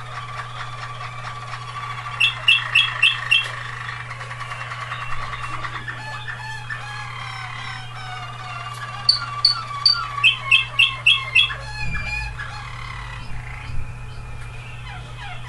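Waterslager canaries singing: a continuous rolling song, broken twice by a run of loud, evenly spaced ringing notes, about two seconds in and again about nine seconds in.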